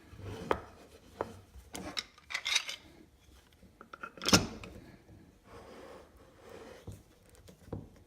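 Bar clamp being worked by hand: irregular clicks and rubbing, scraping strokes from its metal parts, with one louder knock about four seconds in.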